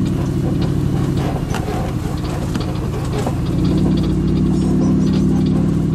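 Safari tour truck's engine running as it drives along a rough dirt track. The engine note shifts and gets a little louder about three and a half seconds in.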